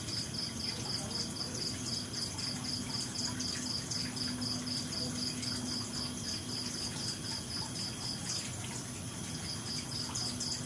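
Cricket chirping steadily, about three high chirps a second, with a short pause about eight and a half seconds in.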